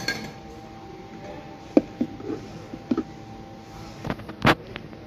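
Light knocks and taps of plastic popcorn buckets being handled and knocking against each other on a display pile. There are about eight of them, mostly from the middle onward, the loudest near the end, over a faint steady hum.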